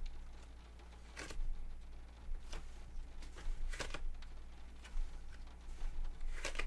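Tarot cards being handled: a handful of brief, soft flicks and rustles spaced a second or so apart, over a low steady electrical hum.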